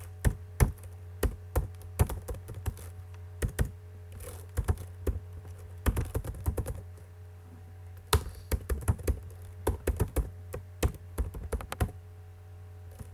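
Computer keyboard typing: irregular bursts of key clicks, a few keystrokes at a time with short pauses, over a steady low electrical hum.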